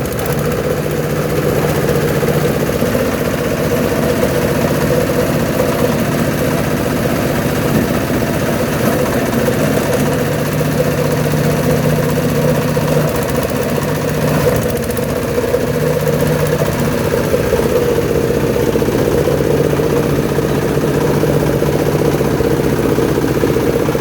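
Cocopeat grinding machine running steadily, a continuous engine-like drone with a constant hum.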